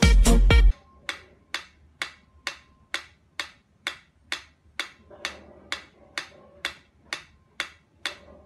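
Loud music cuts off within the first second. Then a mechanical metronome ticks steadily, a little over two ticks a second.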